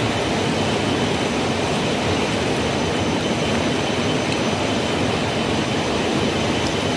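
Swollen river rushing: a loud, steady wash of water noise.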